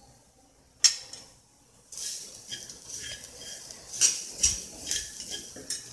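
A steel spatula stirring and scraping in a dark-coated kadhai, mixing turmeric into a chilli-garlic oil tempering. A single sharp click comes about a second in, then from about two seconds in there are repeated scraping strokes against the pan.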